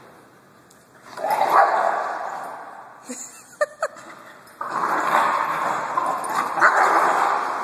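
Two dogs play-fighting: long stretches of rough, noisy scuffling, with a few short high yips about halfway through.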